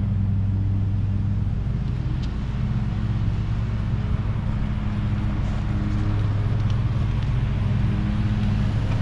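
Small four-cylinder engine of an MG Midget sports car running steadily at low speed as it pulls up slowly.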